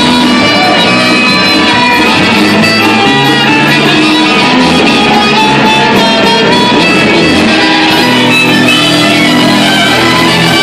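Live blues band playing: electric guitar, electric bass and drums, with harmonica and trumpet.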